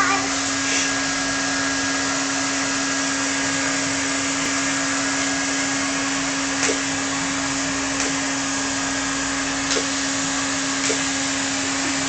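Vacuum cleaner running steadily, a constant hum with an even rushing hiss, broken by a few brief clicks or knocks in the second half.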